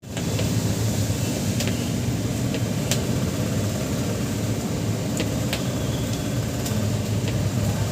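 Heavy rain falling steadily, with a low hum beneath it and a few sharp ticks of drops striking a nearby surface.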